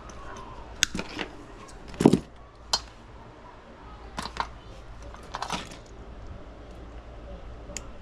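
Hand work with tools and parts: a scattered run of sharp clicks and knocks, the loudest a heavier knock about two seconds in, over a steady low hum.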